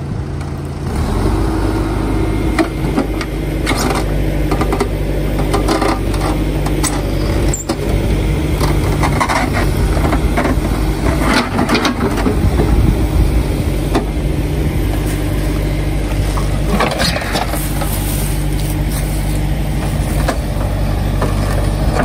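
Hidromek 102S backhoe loader's diesel engine running under load as the rear backhoe bucket digs into a dirt slope, picking up about a second in. Scraping and knocking of the steel bucket in soil and stones come through on top.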